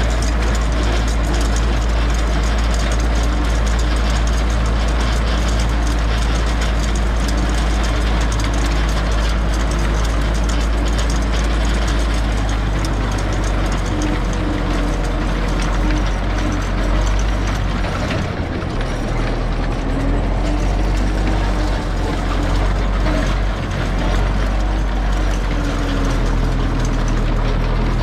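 Zetor 6245 tractor's four-cylinder diesel engine running steadily, its note shifting a couple of times past the middle.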